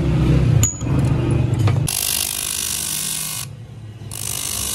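A low rumble, then about two seconds in a switch to an electric bench grinder's abrasive wheel running with a steady hiss, which drops out briefly near the end.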